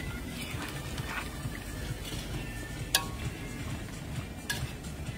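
A metal spoon stirring soup in a large metal pot, with a few sharp clinks of the spoon against the pot, the loudest about three seconds in.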